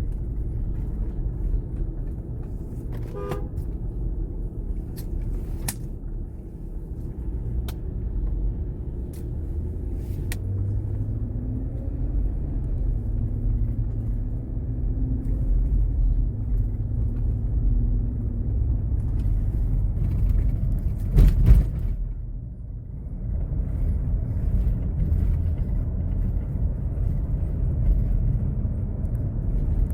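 Road and engine rumble inside the cabin of a moving 2015 Chevrolet Tahoe with its 5.3-litre V8, with a few light clicks and one brief louder sound about two-thirds of the way through.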